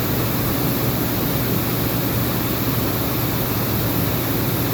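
Chiron FZ08 MT mill/turn machining center running a program under power without cutting: a steady whirring hiss with a constant low hum.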